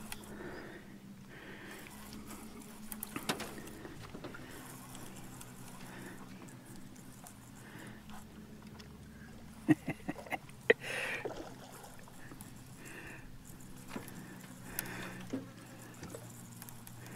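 Small fishing boat's motor running, a faint steady hum, with a few sharp knocks and clicks of gear on the aluminium boat, most of them together about ten seconds in.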